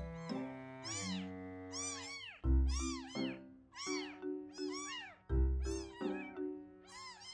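Baby kittens mewing over and over in thin high cries, about two a second, over background music with held chords and a deep bass note every few seconds.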